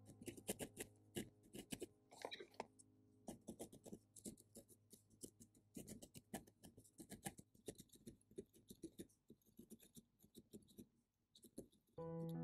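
Felting needle stabbing again and again into wool and curly yarn: quick, irregular light clicks and scratches, thinning out after about eight seconds. Background music comes in near the end.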